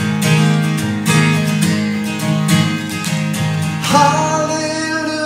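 Cutaway acoustic guitar with a capo, strummed in a steady rhythm. A man's singing voice comes back in about four seconds in.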